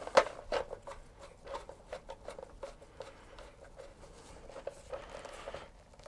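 A terminal screw on a plastic outdoor socket is tightened down onto the neutral wire: a string of light clicks and small scrapes, with a faint rasping stretch in the second half.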